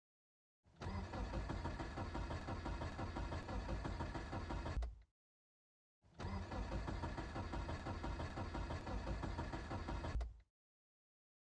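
A car engine cranking on its starter without catching, in two stretches of about four seconds each, each breaking off abruptly into silence: a cold engine that won't start.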